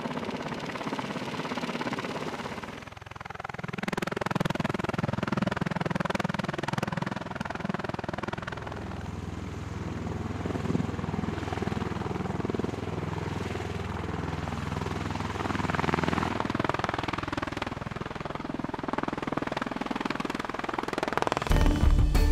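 MV-22 Osprey tiltrotor in helicopter mode, its twin turboshaft engines and proprotors running with steady rotor noise that dips briefly about three seconds in. Music starts near the end.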